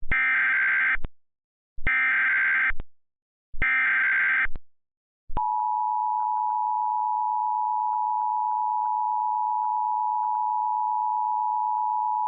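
Emergency Alert System tones: three bursts of SAME header data, each about a second of fast two-pitch warbling, encoding a flash flood warning. About five seconds in, the steady two-tone EAS attention signal begins.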